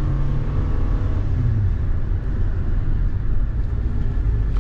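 Car driving, with steady low engine and road noise heard from inside the cabin.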